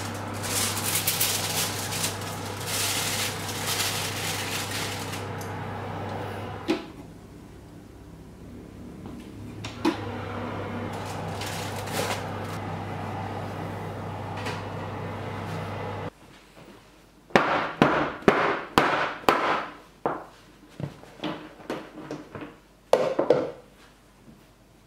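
Fan oven humming steadily, with crinkling and a few clunks as a loaf tin is handled inside the open oven, likely aluminium foil being laid over the browning loaf. Then a quick series of sharp knocks as the metal bread tin is knocked against the counter to release the baked loaf.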